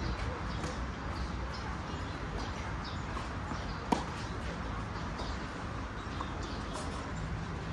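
Steady outdoor background noise with faint bird chirps, and one sharp knock about four seconds in.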